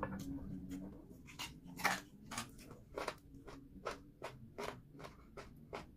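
A person eating meat by hand and chewing with the mouth open: a string of sharp, irregular wet smacks and clicks, about two or three a second.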